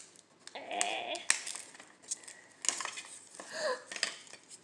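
Hard plastic segments of a Zuru 5 Surprise toy capsule clicking and knocking as they are pulled open, with the foil seals on the segments rustling as they are peeled.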